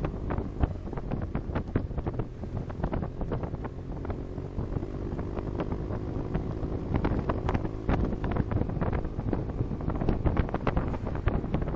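Wind buffeting the microphone of a motorcycle at riding speed in uneven gusts, over a faint steady drone from the Honda Silver Wing GT600 scooter's engine and the road.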